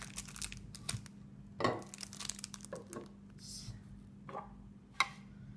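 Speedcube packaging being handled: irregular plastic and cardboard rustling and crinkling with scattered light clicks and taps, and one sharp click near the end. A steady low electrical hum runs underneath.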